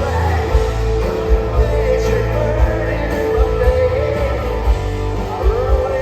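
Rock band playing live, with electric guitar, bass, drums and a lead vocal over a steady beat.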